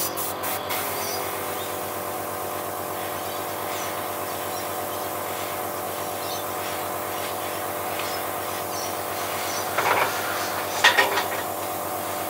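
Small Iwata airbrush compressor running with a steady hum while the airbrush sprays transparent black, with two short louder bursts near the end.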